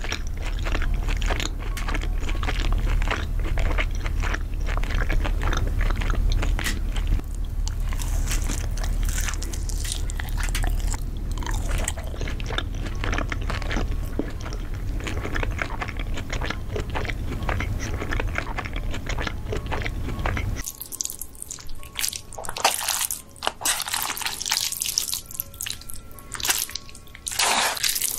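Close-miked eating: crunchy bites and chewing of crispy crumb-coated chicken tenders over a steady low drone. About two-thirds of the way through it cuts to wetter, spikier noodle slurping and chewing.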